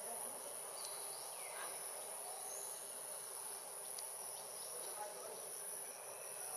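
Steady high-pitched drone of insects, with a short falling whistle about a second in.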